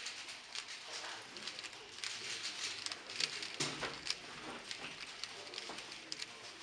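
Rapid, irregular clicking and clacking of a 3x3 Rubik's cube's plastic layers being turned by hand.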